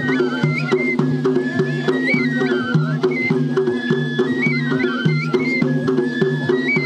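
Tajik folk dance music: a steady drum beat under a high melody that steps up and down in short phrases.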